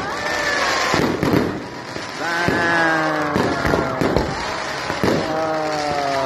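Aerial fireworks shells bursting overhead, a rapid run of bangs and crackling. Three long, slightly falling tones of about a second each sound over the bangs.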